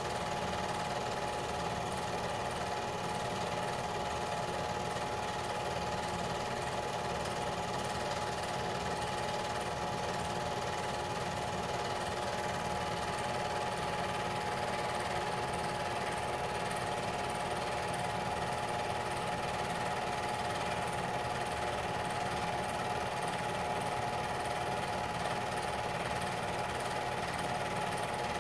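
Film projector running steadily: a continuous motor whir with a fast, even mechanical clatter from the film drive, unchanging throughout.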